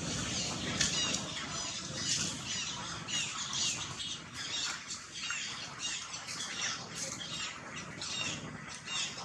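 Rapid, high-pitched chirping calls, many short squeaks repeating through the whole stretch over a low rustling background.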